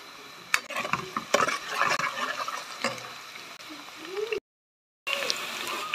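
Sliced onions sizzling in hot oil in a metal pot while a metal spatula stirs them, with sharp scrapes and knocks on the pot from about half a second in. The sound breaks off abruptly for a moment near the middle.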